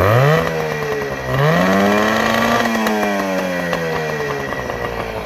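Johnson 9.9 hp two-stroke outboard motor revved twice: a quick rise in pitch that drops back just after a second in, then a second, higher rev that peaks and slowly eases back down to idle. The motor runs strongly after its carburetor cleaning.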